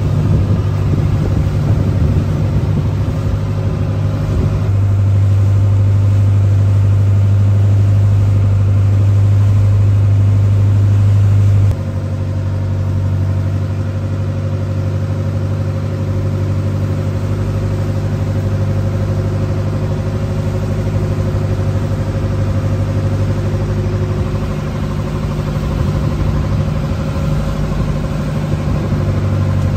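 A river boat's engine runs with a steady low drone. It grows louder about five seconds in, then drops back suddenly a few seconds later, as the throttle eases.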